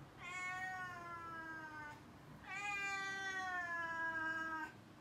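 Domestic cat meowing twice, two long drawn-out calls each falling slightly in pitch, with a short pause between them: a cat asking to have a door opened.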